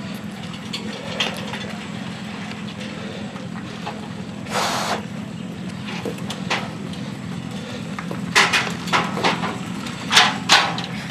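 Steady low hum of an idling engine, with scattered knocks and clunks from the crashed motorcycle being handled. There is a brief rush of noise about halfway through, and several sharp, loud knocks in the last few seconds.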